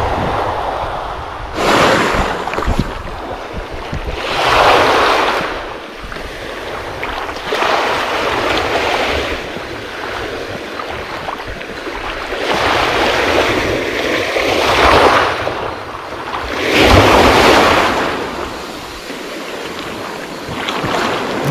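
Small sea waves breaking and washing up a sand-and-gravel beach, the surf surging and falling back every few seconds.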